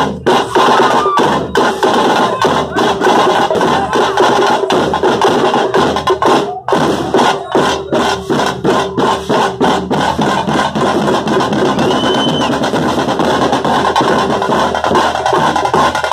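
Frame drums beaten hard in a fast, continuous rhythm for a festival procession.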